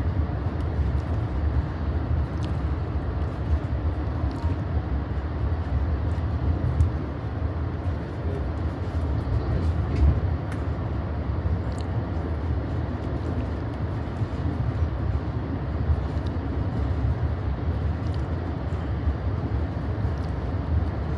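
Moving Amtrak Borealis passenger train heard from inside the coach: a steady low rumble of wheels on rails, with faint scattered clicks.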